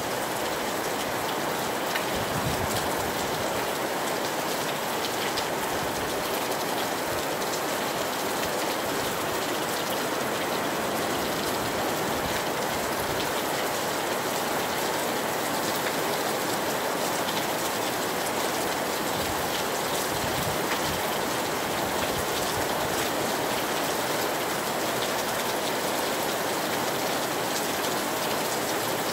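Steady tropical rain falling on a beach, an even hiss without a break.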